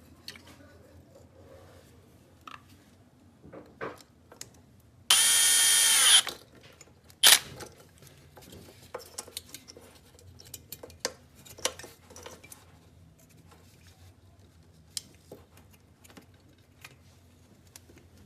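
An electric drill or driver runs for about a second, then a sharp loud clack follows, with small clicks and handling noises of work on the refrigerator compressor's starter fitting.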